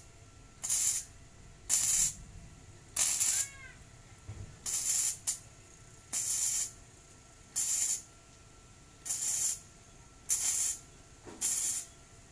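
Gasless flux-core MIG welder arcing on thin steel tubing in short stitch-weld bursts: about nine half-second spurts of crackling hiss, one every second or so, with quiet gaps between.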